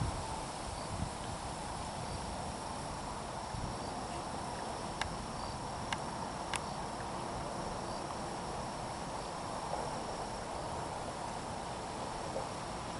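Steady, unbroken drone of an insect chorus, with a few faint sharp clicks near the middle.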